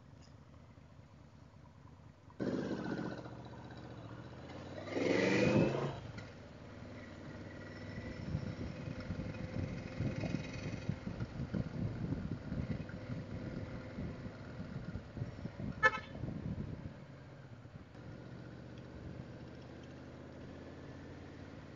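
Yamaha Vmax motorcycle's V4 engine pulling away under throttle: it comes in suddenly a couple of seconds in and rises in pitch about five seconds in, then runs along at road speed with rough wind noise on the helmet microphone. There is one sharp click near the end.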